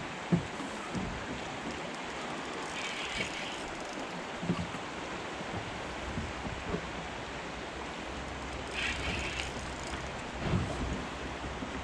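Steady rushing of river water with wind on the microphone, broken by a few dull knocks.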